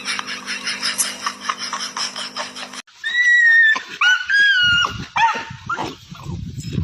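A dog whining in four or five high, drawn-out cries whose pitch bends up and down, starting about three seconds in.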